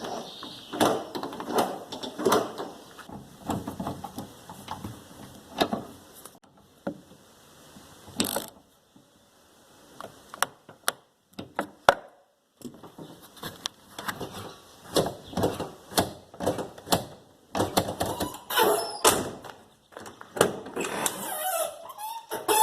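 A run of clicks, knocks and thuds from a car door, its trim panel and handle hardware being handled and fitted, with short pauses between.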